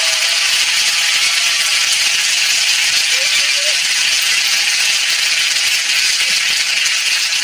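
Studio audience applauding, a dense, steady clapping.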